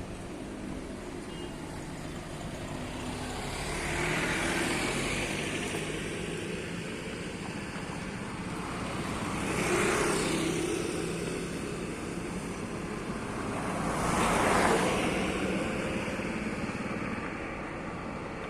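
Road traffic noise, with three vehicles passing by one after another, each swelling up and fading away.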